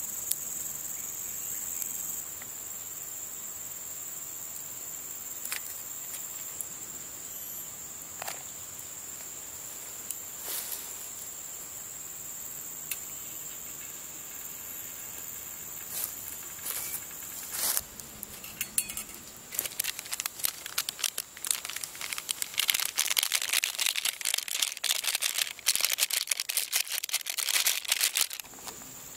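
Steady high insect drone with scattered sharp clicks and knocks. Over the last ten seconds comes dense, busy crinkling as a paper coffee sachet is torn open and emptied into a pot.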